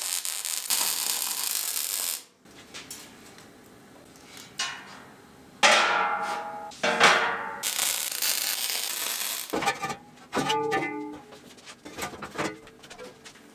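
Welding arc crackling and hissing steadily for about two seconds, then stopping. Later, steel strips and plates clank and ring as they are handled and set on the steel frame, in two bouts.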